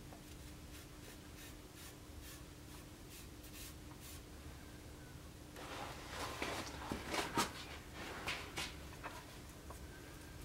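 Faint rustling and scratching of a paper template being handled and pressed flat on a wooden axe-handle blank. It is quiet at first; a run of louder scratches and light taps starts about halfway through. A faint steady hum lies underneath.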